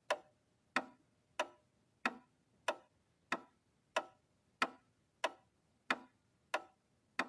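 A clock ticking: single sharp ticks, evenly spaced at about one and a half a second, each with a short ringing tail. It is the ticking sound effect of an animated clock logo.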